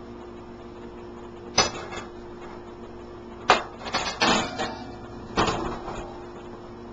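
Metal frying pan clanking against an electric coil stovetop as it is moved and set on a burner: four sharp knocks a second or two apart, the third a short rattling cluster.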